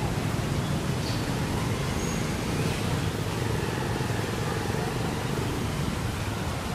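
Steady outdoor background noise: a low rumble under an even hiss, with no distinct event standing out.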